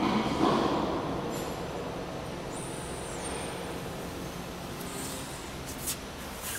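Automatic CNC panel saw running: louder machine noise in the first second or so eases into a steady mechanical hum, with a brief high whine near the middle and a sharp click near the end.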